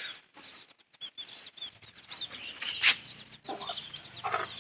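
Chickens clucking while small birds chirp over and over, with a brief sharp noise about three seconds in.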